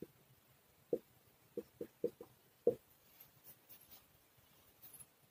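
Marker pen writing on a whiteboard: a run of short squeaks from the tip in the first three seconds, then only faint scuffs.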